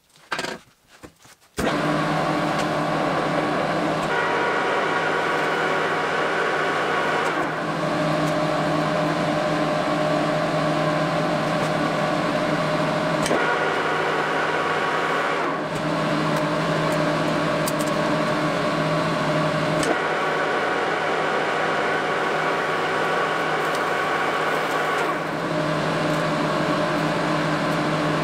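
Metal lathe running steadily while turning down a polyurethane skateboard wheel. It starts abruptly about one and a half seconds in, after a few light handling clicks, and its tone shifts several times.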